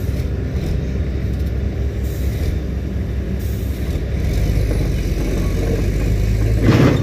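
Heavy diesel engines of a stuck Hyundai tractor-trailer and an excavator pushing it, running steadily under load, growing louder about four seconds in. A brief knock comes near the end.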